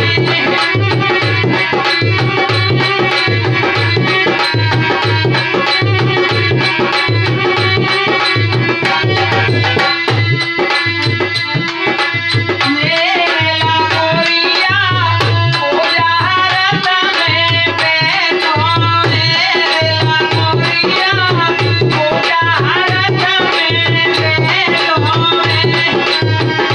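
Languriya folk song played on a harmonium and a dholak: the harmonium holds reedy chords over a steady, even dholak beat, with a man singing along, most strongly in the second half.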